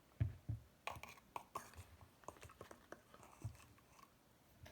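Spice containers handled while a rub is mixed: two soft thumps near the start, scattered light clicks and ticks, and another soft thump past three seconds in.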